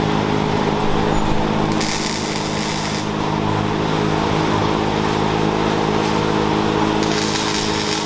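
Race truck engine running steadily at constant speed, over a rough hiss that brightens briefly twice.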